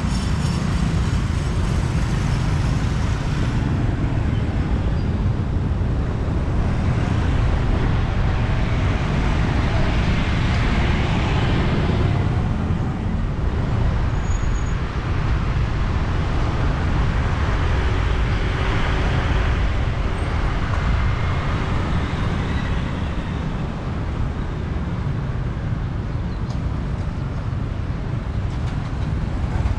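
Road traffic noise: a steady low rumble of engines and tyres, swelling twice as louder vehicles go by.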